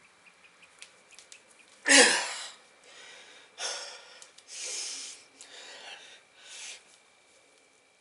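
A man's heavy, strained breathing under exertion while bending a steel bolt by hand: a loud forceful exhale about two seconds in, then several shorter heavy breaths.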